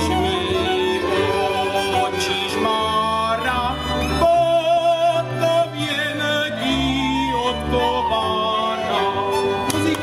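Male singer performing a Moravian folk song, accompanied by a cimbalom band of violins, cimbalom and double bass.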